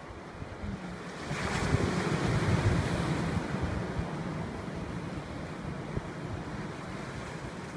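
Sea waves breaking and washing over a rocky shore, with one wave swelling louder about a second and a half in, and wind buffeting the microphone.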